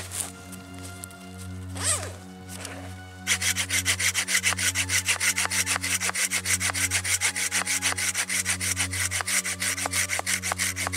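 Hand saw cutting into a trembling aspen trunk in fast, even strokes, starting about three seconds in after some quieter handling noise.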